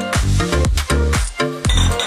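Electronic dance background music with a steady beat of about two beats a second over a bass line.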